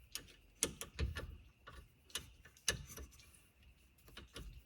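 Wrench clicking in short, irregular strokes as the brake caliper bolts are snugged up.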